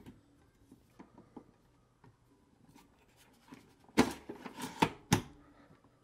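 A 3.5-inch hard drive being pushed down into a bay of a StarTech four-bay SATA docking station: a few faint clicks, then a scraping slide about four seconds in and a sharp click about a second later.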